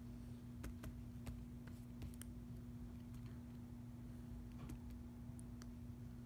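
Scattered light clicks of a computer mouse and keyboard, a dozen or so irregular clicks, over a steady low hum.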